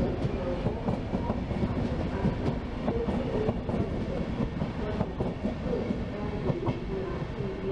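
SBB passenger coaches rolling past along the platform, their wheels clattering over rail joints and points in a steady, dense run of clicks over a rolling rumble.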